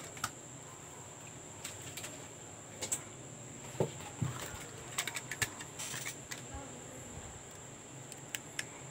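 Light clicks and knocks of a clear plastic action-camera housing being handled and set down on a desk, with a duller knock about four seconds in and a quick run of clicks around five to six seconds. A steady high-pitched whine continues underneath.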